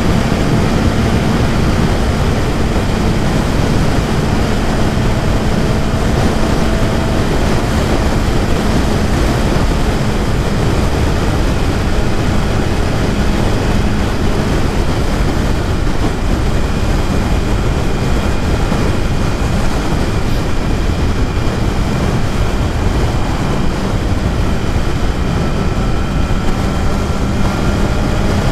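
BMW S1000RR inline-four sport-bike engine running at a steady cruise, its pitch nearly constant and edging up slightly near the end, under heavy wind rush on the microphone.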